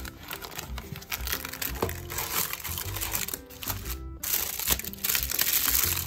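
Plastic wrap and a cardboard box crinkling and rustling as a puff pastry sheet is pulled out and handled, loudest in the last two seconds, over light background music.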